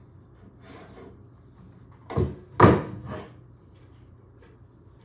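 Plywood pieces being handled: faint rubbing, then two loud scraping knocks a little over two seconds in.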